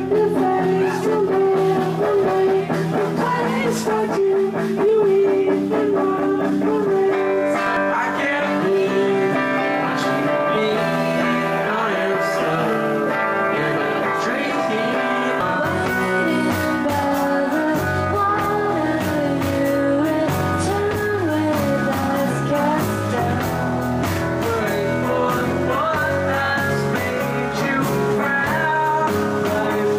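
Live indie rock band playing a song: guitar and a male lead voice singing. About halfway through, the low end fills in and the band plays fuller.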